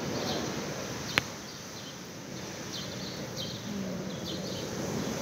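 Outdoor background noise with short high chirps repeating every half second or so, and one sharp click about a second in.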